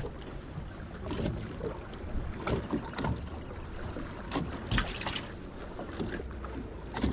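Wind buffeting the microphone, with several short knocks and splashes as a perch is dropped into a boat's water-filled livewell and the livewell lid is handled.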